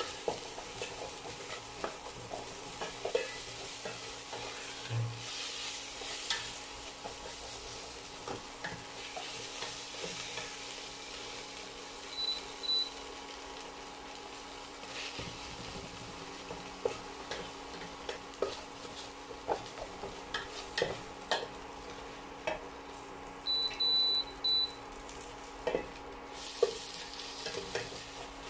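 Corned beef sizzling as it fries in a stainless steel pot, while a spatula stirs it, scraping and knocking against the pot.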